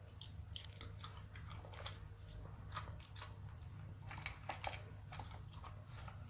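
Pekingese dog licking and chewing at pieces of its dog food: faint, irregular small clicks and crunches of mouth and tongue, over a steady low hum.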